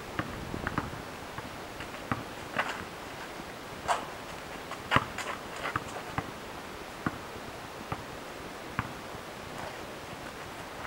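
Irregular knocks and scuffs of an outdoor basketball game: the ball bouncing on asphalt and sneakers scraping the pavement, the sharpest knock about five seconds in.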